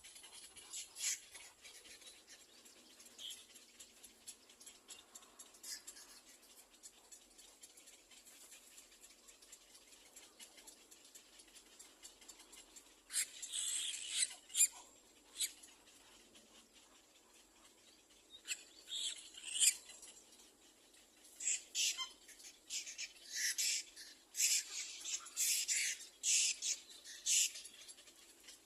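Little black cormorant chicks giving short, high squeaky cries, typical begging calls of nestlings waiting to be fed. A few cries come early, a cluster about halfway, and a long run of them in the last third.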